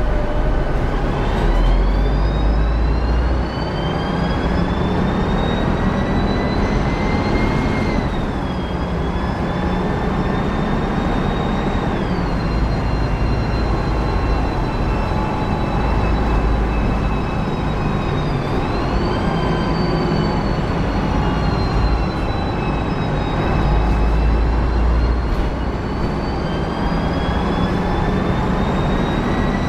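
Volvo B10M bus under way, heard from inside: the low drone of its THD102KF straight-six diesel with a high transmission whine from the Voith DIWA automatic gearbox. The whine rises and falls with road speed and drops suddenly in pitch a few times.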